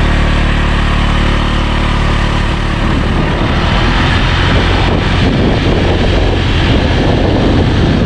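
Small motorcycle engine running steadily, then the bike moves off and wind noise on the microphone rises and drowns it from about three seconds in.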